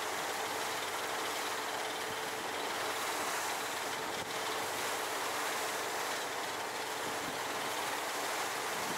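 Steady wind and sea noise aboard a fishing boat, with a faint constant hum underneath.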